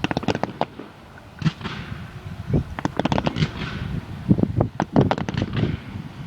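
Fireworks going off in quick clusters of sharp bangs and crackles, several reports a second at times, with the loudest bangs a little after the middle.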